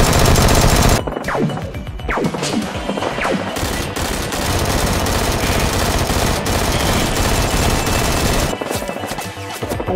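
Sustained rapid automatic gunfire, added as a sound effect for toy-blaster shooting, over action background music. A few falling whistles sound between about one and three seconds in.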